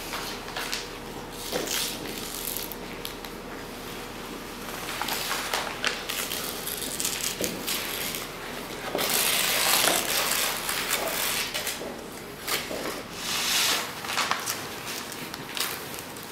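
A large sheet of glossy photographic print paper being torn and peeled back by hand, with irregular crackling rips. The longest and loudest tear comes about nine to ten seconds in.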